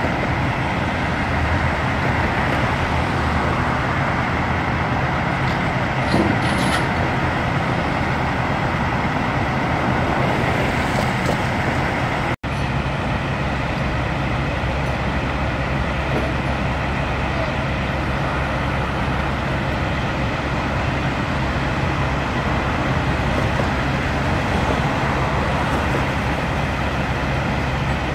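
Steady rumble of highway traffic and heavy trucks, unbroken except for a momentary dropout about twelve seconds in.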